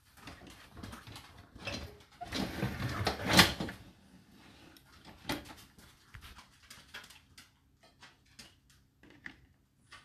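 Whirlpool dishwasher's wire racks being slid on their rails and handled. A rolling rush from about two to three and a half seconds in, then scattered light clicks of the baskets.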